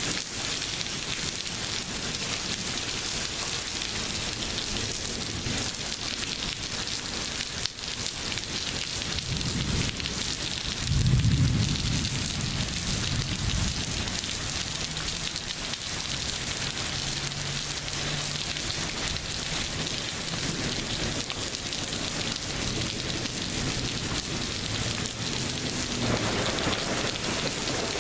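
Heavy rain pouring steadily in a thunderstorm, with a rumble of thunder about ten seconds in that swells for a few seconds and fades.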